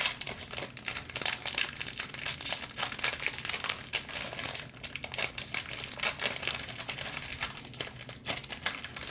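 Baseball card pack wrapper crinkling as it is handled and opened: a dense, irregular run of crackles.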